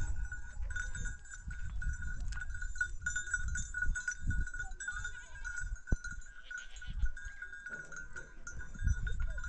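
A herd of goats and sheep with their bells ringing steadily, over an uneven low rumble.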